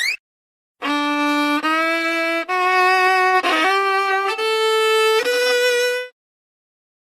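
A violin-like bowed tone playing a slow rising line of about six held notes, stepping up in pitch roughly every second, with a short slide between notes midway. It cuts off suddenly near the end.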